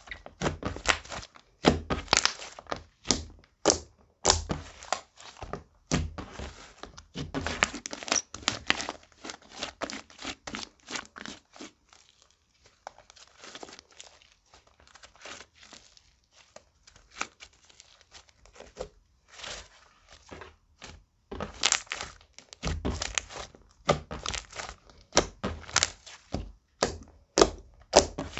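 Hands kneading and poking a thick, glossy slime made of clear slime mixed with makeup highlighter and glitter, giving a dense run of sticky clicks and squelches. The sounds thin out in the middle while the slime is stretched out, then grow busy again near the end.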